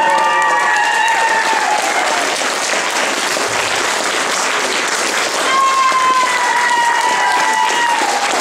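An audience applauding steadily. Two long, high, slightly falling cheers ring out over the clapping, one at the start and another from about five and a half seconds in.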